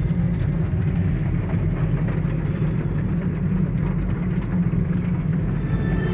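Car driving along a road, heard from inside the cabin: a steady low engine and road rumble.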